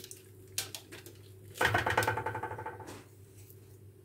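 Hands handling food on a parchment-lined baking tray: a few soft taps, then a longer rustle of the baking paper about halfway through.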